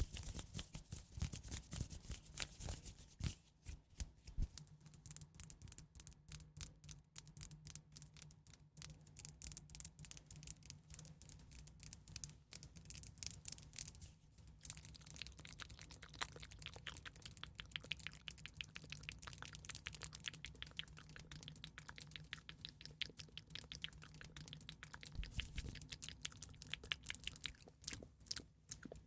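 Close-miked ASMR trigger sound: a dense, continuous run of rapid crisp clicks and crackles.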